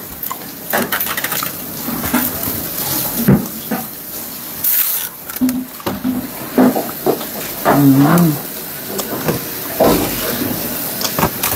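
Dry sweet tamarind pod shells crackling and snapping as they are cracked and peeled, mixed with the crinkle of a plastic clamshell box and chewing, close to a clip-on microphone.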